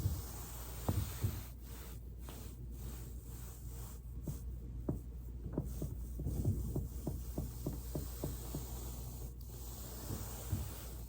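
Body rolling on a foam roller, with two low thumps near the start. Through the middle comes a run of small pops and clicks, about three a second, from the back's joints cracking as it rolls over the roller.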